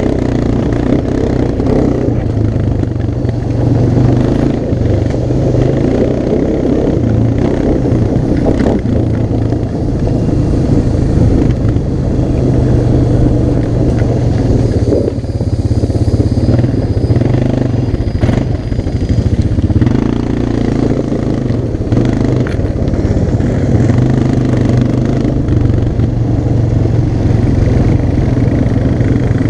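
ATV engine running under way, its note swelling and easing with the throttle, with a couple of brief knocks.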